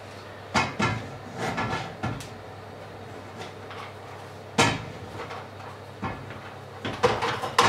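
Kitchen handling noises: a run of sharp knocks and clatters, a few close together and others spaced a second or more apart, with the loudest near the end, over a steady low hum.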